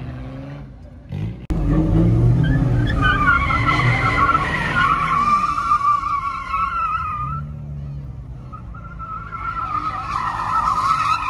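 Car spinning donuts: engine revving hard under load while the tires squeal in long wavering screeches. The first screech starts about three seconds in and the second comes near the end. The sound jumps suddenly louder about a second and a half in.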